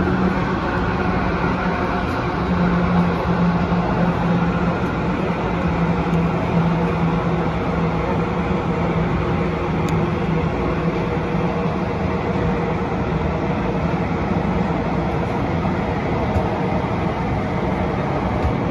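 MTR A-train electric multiple unit running at speed, heard from inside the carriage: a steady rumble of wheels on rail with a low motor hum that fades out about halfway through.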